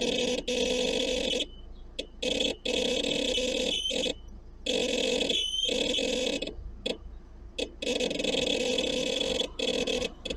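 Loud, annoying noise from the back of a Seat Alhambra with the engine running, cutting in and out irregularly in spells from a fraction of a second to about two seconds long. Its cause is unknown to the owner.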